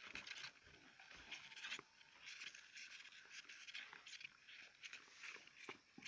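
Faint, irregular scratching and scuffling of hamsters' claws on the plastic floor and sides of a bucket as a mother and her pups crawl over each other, with a few soft knocks.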